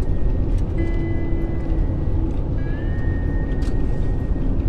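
Steady low road rumble inside a moving car's cabin, with a few faint thin high tones over it, one sliding upward about two and a half seconds in.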